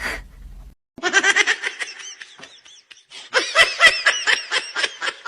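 A person laughing hard in rapid, high-pitched bursts, one run about a second in and a longer one from about three seconds in.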